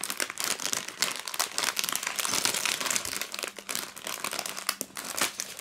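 Thin clear plastic Lego parts bag crinkling and crackling as hands pull it open, with many quick irregular crackles.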